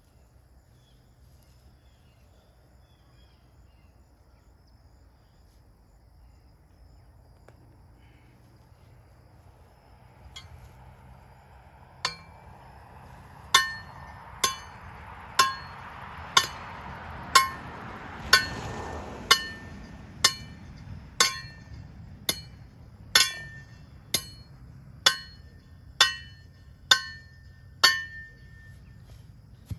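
A hammer striking metal fencing hardware at an even pace of about one blow a second, each blow ringing, starting about twelve seconds in after a stretch of quiet outdoor background.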